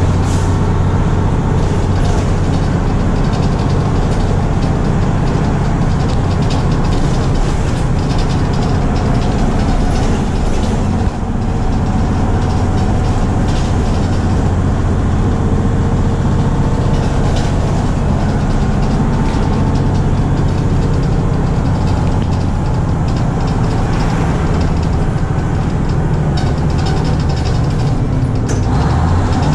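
Engine and road noise heard inside the cabin of a 1971 Crown Super Coach school bus under way: a steady, loud low drone.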